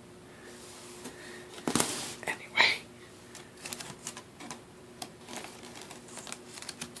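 Irregular light clicks and taps, with a louder cluster of knocks and scuffling about two seconds in.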